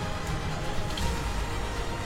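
Background music with a steady low end.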